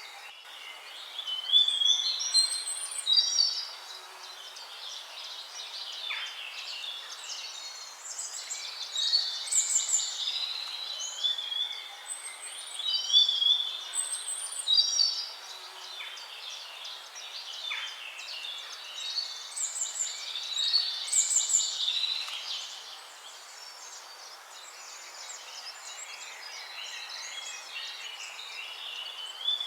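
Several songbirds singing, with short warbling phrases repeating and overlapping over a steady background hiss. The song thins out for a few seconds near the end before picking up again.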